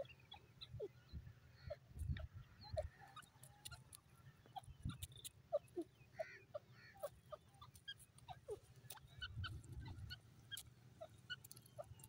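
Grey francolin foraging, giving many soft, short call notes, with faint scattered clicks and a low rumble at times.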